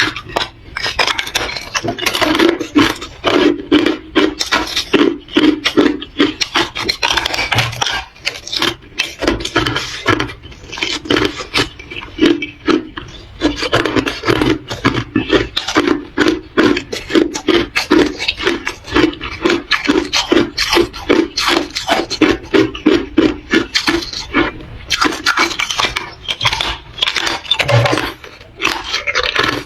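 Close-miked chewing of hard ice: rapid, crunchy bites in quick runs, with short pauses between mouthfuls.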